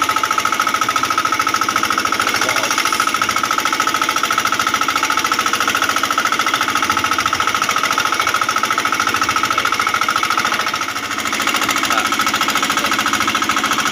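Small engine on a fishing boat running steadily and loudly with a fast, even knocking beat.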